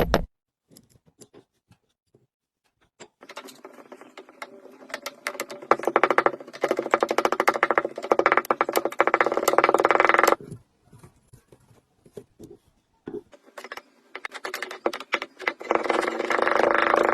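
Kinetic sand being cut and crushed: a dense, crunchy crackle of many tiny grains. It comes in two stretches, one from about three seconds in to about ten seconds, and another building from about fourteen seconds, with scattered crackles in between.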